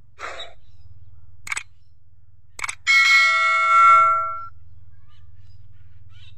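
Subscribe-button sound effect: a short noise, two clicks, then a bell chime with several tones that rings for about a second and a half before fading, over a faint low hum.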